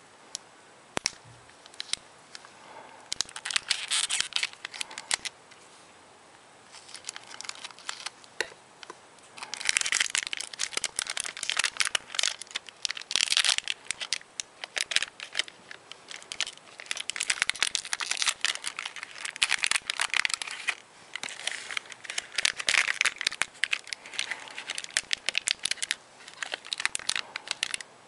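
Cellophane wrapper of a 1975 Topps baseball cello pack crinkling and tearing as it is peeled off the cards, in spells of crackling separated by short pauses.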